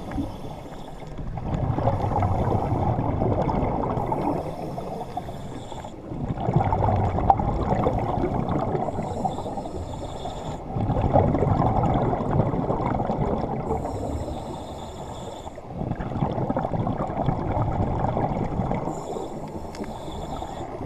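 Scuba regulator breathing heard underwater: exhaled bubbles gurgling in long stretches about every five seconds, each ending with a brief higher hiss.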